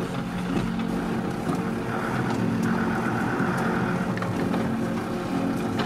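Car engine running steadily while driving, heard from inside the cabin, with a few faint rattles.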